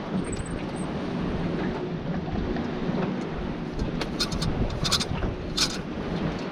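Steady low engine rumble with wind noise, and a few short sharp clicks about four to five and a half seconds in.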